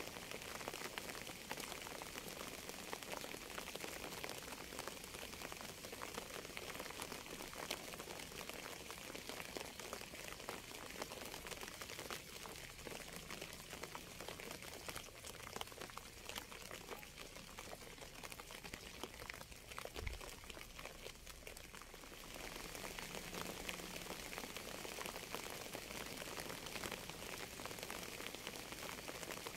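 Steady rain: a dense patter of many small drops that thins a little for a few seconds past the middle and picks up again about three quarters of the way through, with one soft low thump about twenty seconds in.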